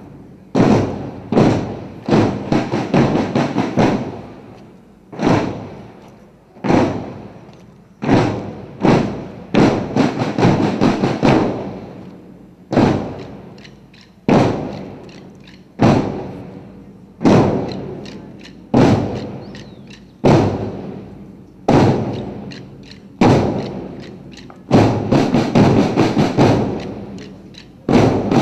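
Marching drums beating a slow cadence, one heavy stroke about every one and a half seconds, broken three times by short runs of rapid strokes like rolls.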